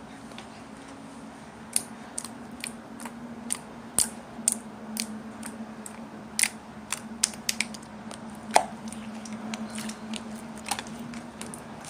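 Clear slime being squeezed and stretched by hand, giving irregular sharp clicks and small pops of trapped air, more of them from about two seconds in. A steady low hum runs underneath.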